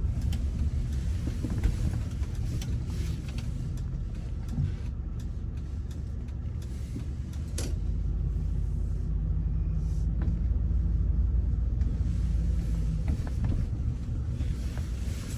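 Car driving along: a steady low engine and road rumble that swells a little about halfway through, with one sharp click partway in.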